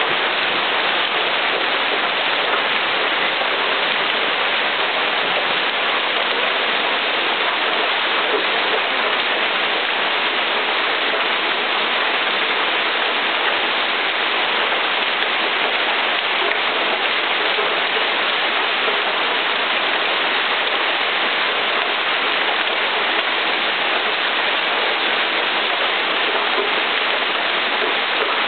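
Heavy rain and hail from a severe thunderstorm pouring down onto the street, lawns and parked cars: a dense, steady wash of noise that never lets up.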